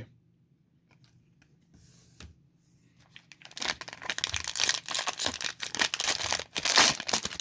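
Wrapper of a trading card pack being torn open and crinkled: a few light clicks, then about three and a half seconds in, a dense crackling tear that keeps going.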